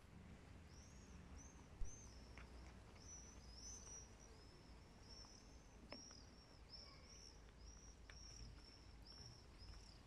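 Faint bird calls: a short, high, arched chirp repeated about twice a second, with a single thump about two seconds in.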